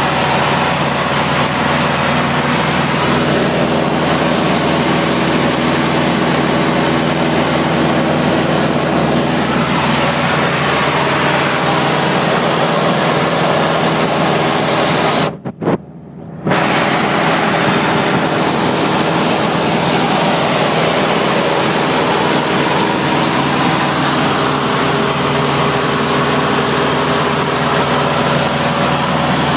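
Luscombe light aircraft's piston engine and propeller droning steadily in level flight, heard inside the cabin with rushing air noise. The sound briefly drops out for about a second halfway through.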